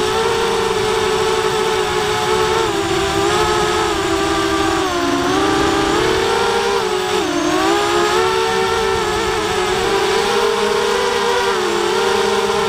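A racing quadcopter's four RCX H1806 2400KV brushless motors spinning HQProp 5040 propellers, heard from the quad's onboard camera in flight. It is a steady whine whose pitch falls and rises with the throttle, dipping lowest about five and seven seconds in.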